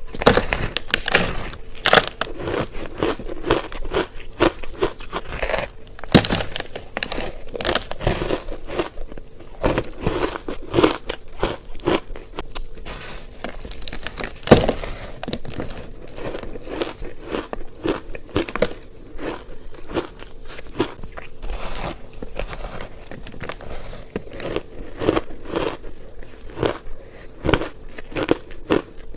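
Reshaped ice chunks being bitten and chewed close to the microphone: a rapid, irregular series of sharp crunches and cracks, with one especially loud crack about halfway through.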